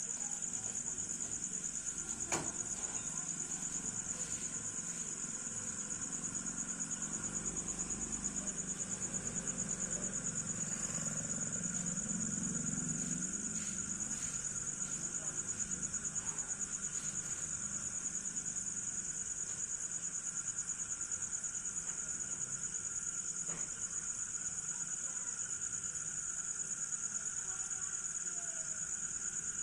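Steady high-pitched chorus of insects trilling in a fast, even pulse, with a single sharp click about two seconds in.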